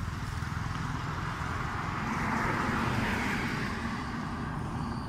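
A motor vehicle passing close by outdoors: a low engine rumble under a rushing noise that swells about two seconds in and fades again near the end.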